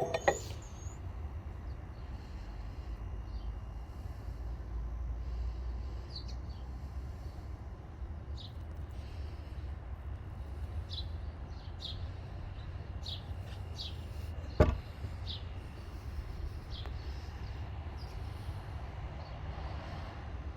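Steady low background rumble with faint short chirps scattered through it, and a single sharp click or knock about two-thirds of the way in.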